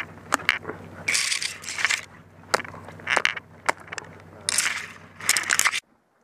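Repeated crunching and sharp clicks, like boots or tyres on packed snow or gravel, over the steady hum of an idling vehicle engine. Both stop abruptly near the end.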